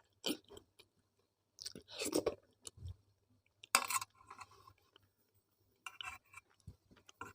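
Close-miked chewing of tawa roti with arhar dal and methi aloo sabzi, in irregular bursts with short pauses between mouthfuls.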